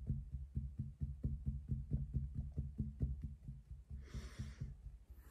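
Fingertips tapping rapidly on the collarbone through a knit sweater during EFT tapping: dull, even thumps about six a second, growing fainter toward the end. A short breath out about four seconds in.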